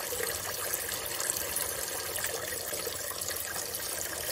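Engine coolant pouring steadily out of the opened oil cooler coolant line and a hose under the engine, two streams running into a catch container. It drains freely because air got into the cooling system.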